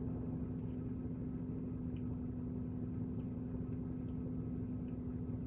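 Steady low hum of a running car heard inside its cabin: one constant tone over a low rumble, unchanging throughout.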